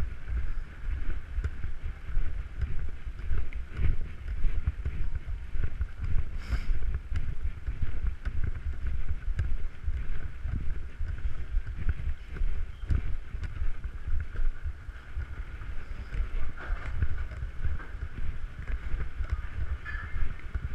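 Low, uneven rumble of a carried action camera's microphone on the move, with a steady background hum.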